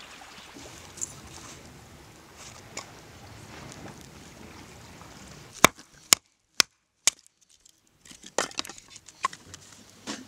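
Wood being split with a knife on a stump chopping block: four sharp knocks about half a second apart, then a run of lighter knocks and taps. Before them, only a faint outdoor background with a few soft clicks.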